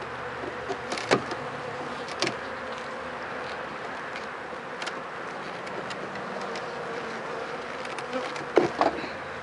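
Honeybees buzzing steadily around an open hive, with sharp clicks and knocks of a metal hive tool prying wooden frames apart: two about a second apart early on, one in the middle and a quick cluster near the end.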